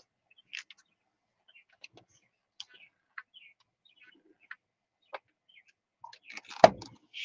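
Thin, damp paper crinkling and ticking faintly as it is handled and smoothed flat on a towel by hand, with one sharper knock near the end.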